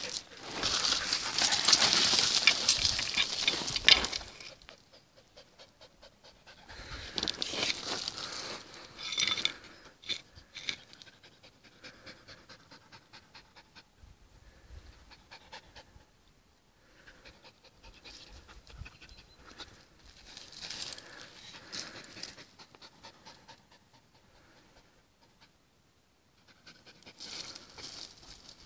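Hunting dog panting hard and fast, a long run of quick, even breaths. A loud rustling noise fills the first four seconds.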